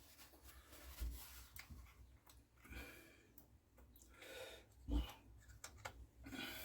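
Scattered light clicks and knocks of chainsaw parts and hand tools being handled during reassembly, with a sharper knock about five seconds in.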